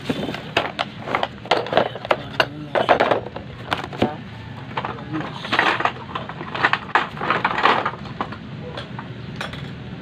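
Irregular clattering and knocking of hard objects being handled, a quick run of sharp clicks and rattles that thins out in the last couple of seconds, over a steady low hum.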